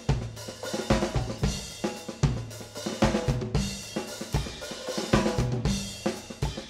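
Background music with a full drum kit playing a steady beat: kick drum, snare and cymbals.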